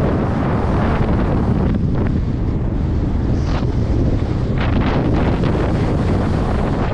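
Wind buffeting the microphone of a skier's body-worn camera during a descent, a loud steady rumble. A few short hisses of the skis sliding through snow in the turns stand out over it.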